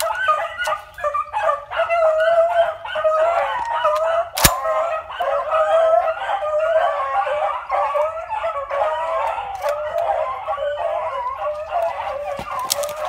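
A pack of beagles baying together on a rabbit's track, many overlapping voices that never let up. One sharp click or snap cuts through about four and a half seconds in.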